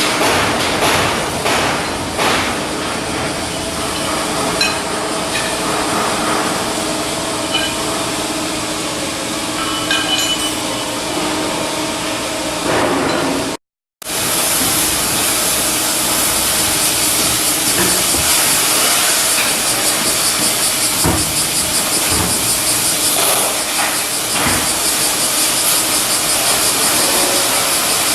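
Steel shipbuilding work on a hull block. First there is steady machinery hum with scattered metal knocks. About halfway through the sound cuts, and a loud, steady hiss of cutting or welding follows.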